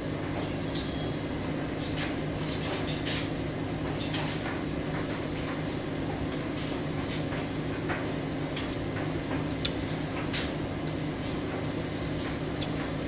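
Wet chewing and lip-smacking while eating fufu with soup by hand, heard as many small irregular clicks. A steady low hum runs underneath.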